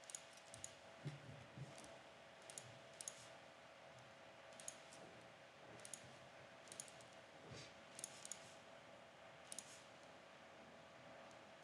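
Computer mouse clicking while drawing in a CAD program: scattered single and double clicks, a dozen or so, over a faint steady hum.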